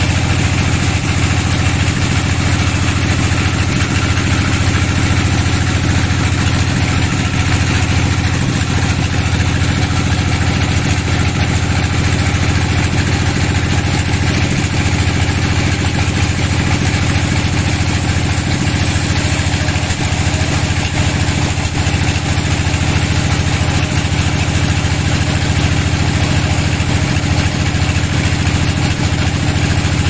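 An engine running steadily at idle, an even low drone that does not change.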